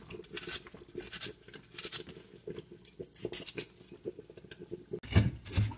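Chef's knife slicing through a red onion on a plate, a crisp crunch with each stroke, repeated about every half second and then faster. Near the end this gives way to a different sound with low thuds.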